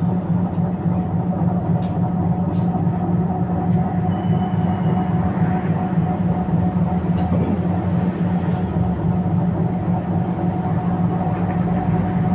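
Tatra T3SU tram running along the line, heard from inside the car: a steady hum of the running car and its wheels on the rails, with a few faint clicks.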